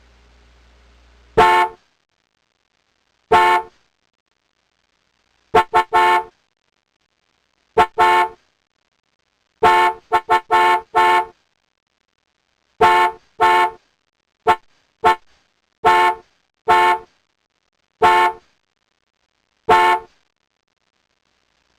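Car horn honking in about twenty short beeps, some single and some in quick runs of two to four, with silent gaps between them.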